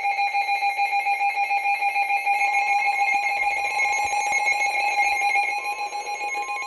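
Emergency Alert System attention signal: a loud, steady electronic two-tone alert, with a slight regular wavering in loudness.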